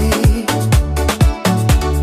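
Upbeat dance track playing, with a steady beat and a pulsing bass line.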